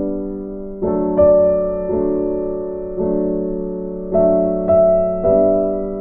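Slow background piano music: chords struck about once a second, each ringing out and fading.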